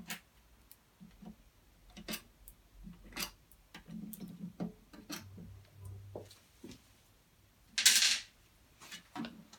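Scattered metallic clicks and knocks of hand tools and screws being worked on a motorcycle's fuel filler cap, with one loud, short rasping noise about eight seconds in.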